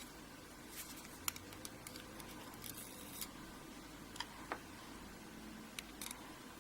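Faint, irregular small metallic clicks and ticks as springs and pins are picked out of the pin bores of a 6-pin ERA euro cylinder lock being gutted, one spring stuck in its bore.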